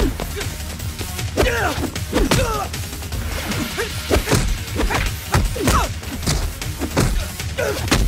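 Fight-scene soundtrack: music under a fast run of punch and kick impact sound effects, about one or two hits a second. Short cries that fall steeply in pitch come between the hits.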